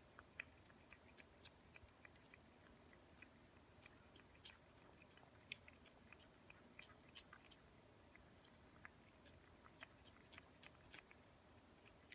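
Ragdoll cats licking purée treat from a squeeze tube: faint, irregular wet tongue smacks and clicks, a little busier near the end.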